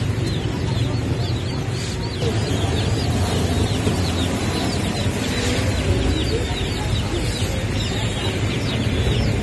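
A crowd of broiler chicks peeping without pause, a dense chorus of short, high, downward-sliding peeps, over a steady low hum.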